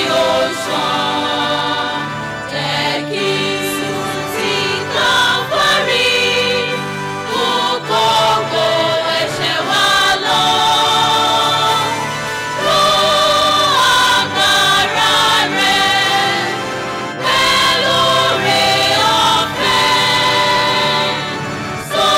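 Church choir singing together into microphones, in long held phrases.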